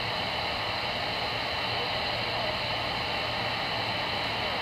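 Voyager CB radio receiver hissing with steady static on an idle channel, the squelch open between transmissions, with a low hum under the hiss.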